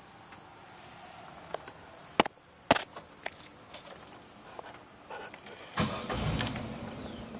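Two sharp knocks about half a second apart, then, about six seconds in, the van's engine cranking and catching, a sustained sound that fades slowly. The engine is one that stays running only with throttle and stalls at idle.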